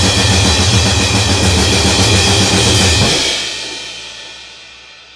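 Harsh noise music: a loud, dense wall of distorted noise with a fast pulsing beat. About three seconds in, the low end cuts off suddenly and the rest fades away.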